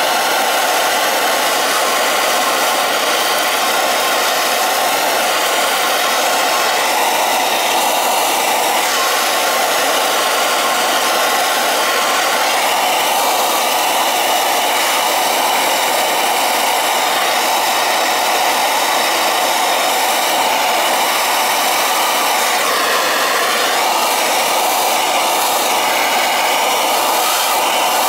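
Gas soldering torch burning steadily with a loud, even hiss as it heats copper elbow and coupling joints for sweat-soldering.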